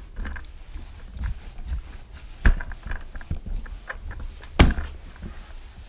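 Scotch-Brite flat mop pushed over ceramic floor tiles, with light clicks and two sharp knocks about two seconds apart as the mop head or pole bumps against something hard.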